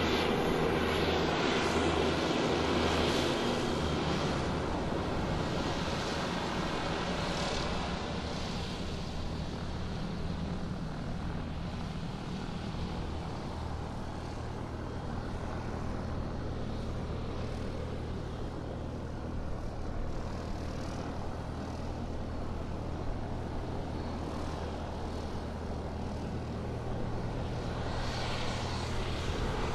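Airplane flying sound effect: a continuous engine drone with a steady low hum. It is loudest in the first few seconds, eases off through the middle and swells again near the end.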